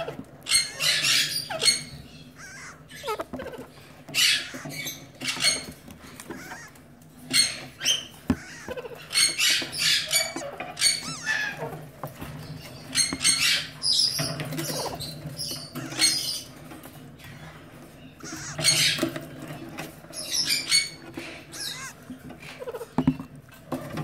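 Alexandrine parakeet chick squeaking in short, irregular, high-pitched bouts while hatching from its cracked egg, over a steady low hum.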